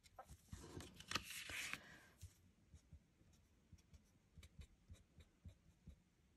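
Faint rustle and scratch of a cardstock panel sliding on a craft mat during the first two seconds, then soft, scattered ticks of an alcohol-marker nib dabbing colour onto cardstock.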